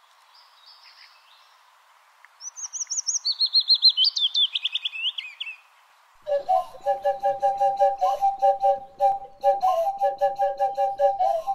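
High, bird-like chirping trills, fast and stepping down in pitch over about three seconds. About six seconds in, music starts: a fast pulsing figure alternating between two notes, with short clicking percussion.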